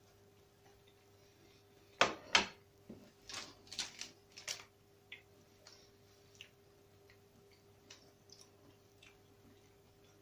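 Tabletop handling noise: two sharp knocks of a china plate and fork being set down about two seconds in, then a couple of seconds of crinkling as a plastic food wrapper is picked up, then a few faint clicks. A low electrical hum runs underneath.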